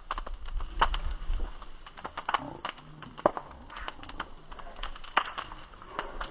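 Campfire wood crackling, with sharp, irregular pops and snaps over a low rumble of the fire.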